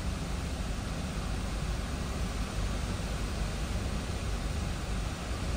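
Strong hurricane wind heard from inside a car's cabin: a steady rushing noise with a low, uneven rumble as gusts press on the car.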